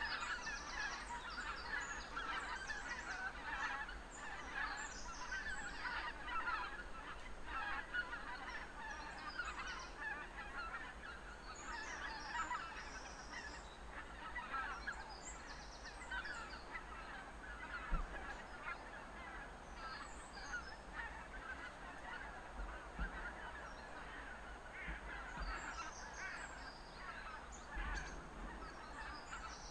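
A large flock of geese honking, many calls overlapping in a continuous chorus. One dull knock comes just past the middle.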